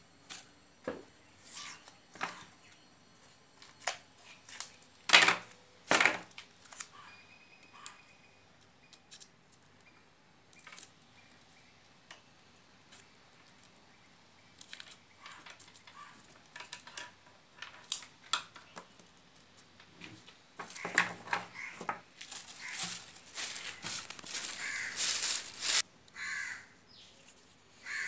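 Insulating tape and a plastic bag being handled at a workbench while a toroidal transformer winding is insulated: scattered crinkling, rustling and sharp clicks. In the last several seconds comes a longer run of hissing, ripping noise as tape is pulled off the roll and torn.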